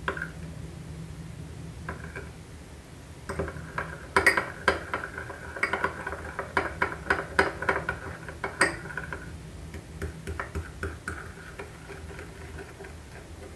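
Spoon clicking and scraping against a glass bowl while stirring a thick white chocolate and milk mixture, in quick, uneven taps that come thickest from a few seconds in until near the end.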